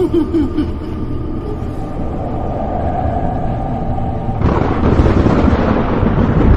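Haunted-house sound effects: a low rumble under faint eerie tones, then about four and a half seconds in a loud thunder roll breaks in and keeps rumbling.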